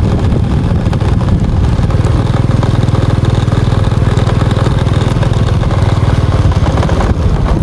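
Small motorcycle engine running steadily while riding, a dense low rumble.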